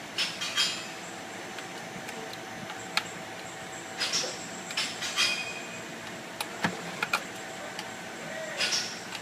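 Intermittent metallic clicks and short scraping noises from hand tools and parts being handled, in clusters of two or three, over a steady faint hum.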